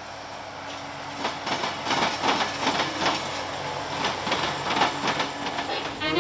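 Freight train wheels pounding across a railroad diamond crossing: a fast, irregular run of loud clacks and bangs that starts about a second in and grows louder.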